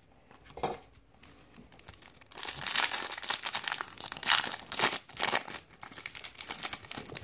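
Foil wrapper of a 2015 Topps Platinum card pack crinkling and tearing as it is ripped open by hand, the crackling starting about two seconds in and running on in a dense string of sharp crinkles.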